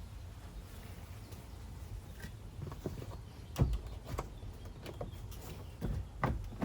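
Van door trim panel being worked loose by hand: scattered clicks and knocks of the panel and its fasteners, the loudest about three and a half seconds in, over a low steady rumble.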